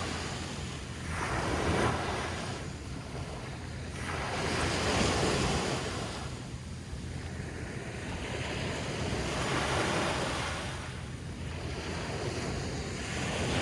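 Ocean surf washing onto the beach, swelling and fading every few seconds, with wind rumbling on the microphone.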